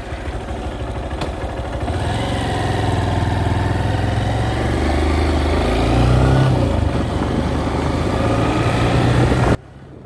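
A vehicle engine heard from on board as it pulls away, growing louder and changing pitch as it picks up speed, then cutting off suddenly near the end.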